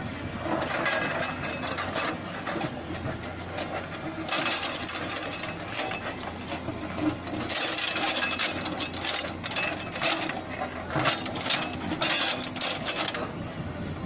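Case backhoe loader's diesel engine running steadily while its backhoe bucket scrapes and knocks against a boulder and stony soil, with irregular clattering throughout.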